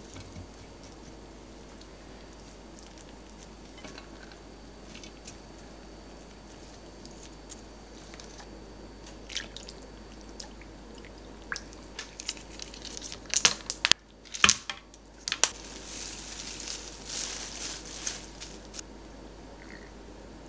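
Soft taps of food being placed into a stainless steel bowl, then, a little past halfway, a run of loud sharp clinks against the steel, followed by a few seconds of cold anchovy-kelp broth pouring into the bowl.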